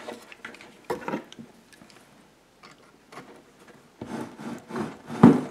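Hands pulling wire connectors off an old factory subwoofer and working it out of its plastic console housing: scattered clicks and rustling, with a sharp knock near the end.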